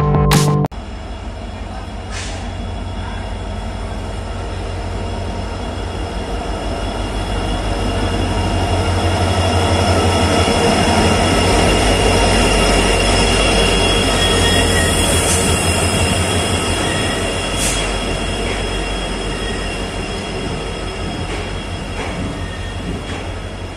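Passenger train pulling into a station: a diesel locomotive's engine rumble builds to its loudest about halfway through as it passes, then the coaches roll by with a steady high-pitched wheel and brake squeal as the train slows.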